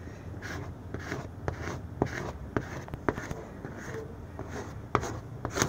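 A squeegee scraping in repeated short strokes over the transfer tape of a vinyl decal on a truck window, pressing the sticker onto the glass to work out air bubbles; about two strokes a second.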